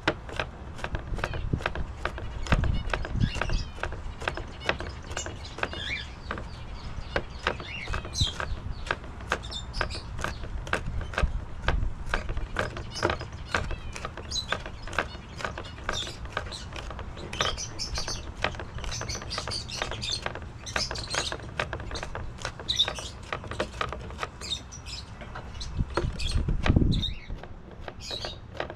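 Small birds chirping in the background over many short clicks and knocks, with a low rumble that swells briefly near the end.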